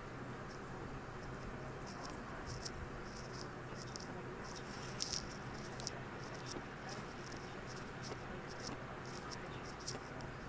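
Close-miked mouth sounds of a man chewing a bite of Taco Bell Mexican Pizza (tortillas, seasoned meat and cheese): quick wet smacks and clicks, a few louder ones about five seconds in, over a steady low hum.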